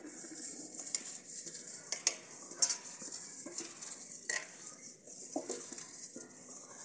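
A hand rubbing oil over the base of a stainless steel plate, a steady swishing, with several light clinks and knocks as the steel plates are handled against each other.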